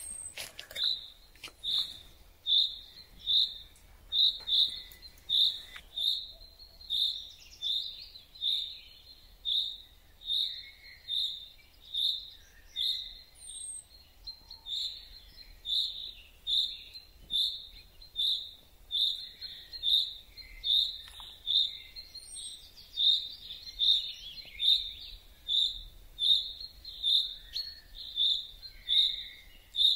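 Common chaffinch giving an unusual short call over and over at a steady pace, a little more than once a second. Fainter calls of other birds sound in the background.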